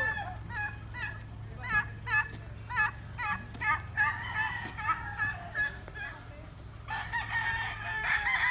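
Chickens clucking in a run of short, repeated calls, then a gamecock rooster crowing loudly near the end.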